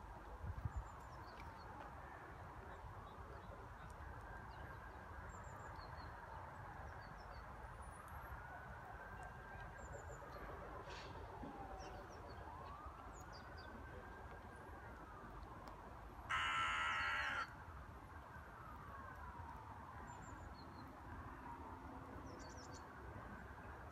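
Distant emergency siren wailing, its pitch slowly rising and falling over and over, with faint bird chirps. About two-thirds of the way through, a louder steady tone sounds for about a second.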